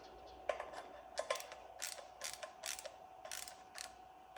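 Screws being tightened down a little at a time with a hand tool, giving a steady run of short mechanical clicks, about three a second.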